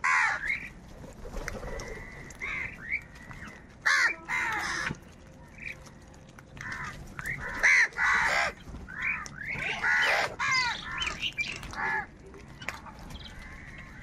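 A flock of house crows cawing while competing over food: many harsh calls overlapping, some in quick runs of several caws.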